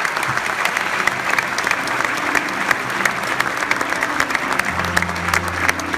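Audience applauding steadily, with music playing underneath whose bass gets louder near the end.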